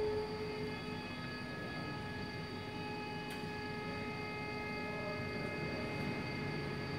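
Steady electrical hum and whine with several high steady tones from a CNC hydraulic press brake just switched on, its control and drives energized but the main hydraulic motor not yet running. A few tones drop out within the first second and others come in about two seconds in.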